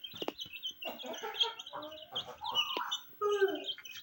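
A group of baby chicks peeping continuously in quick, high, short notes while they feed, mixed with some lower, longer clucking calls and a few sharp taps.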